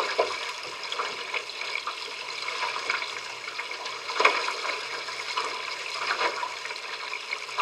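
Water rushing and splashing along the hull of a small sailing trimaran, heard close from a camera on the outrigger just above the surface, with a louder splash about four seconds in.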